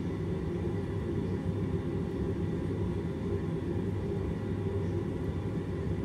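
Steady low rumble of a heating boiler running.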